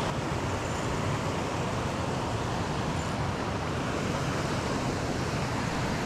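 Steady rush of water pouring over a dam spillway, an even, unbroken roar of falling water.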